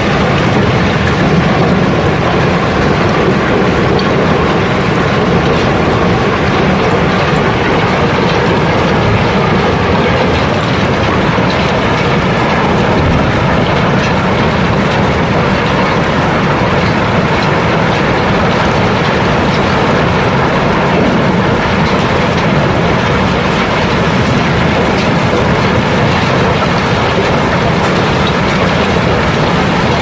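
Barge-load of river cobblestones flowing out of the hold, stones sliding and tumbling down the sloped deck into the unloading opening: a continuous, dense clattering rumble of rock on rock and steel, steady throughout.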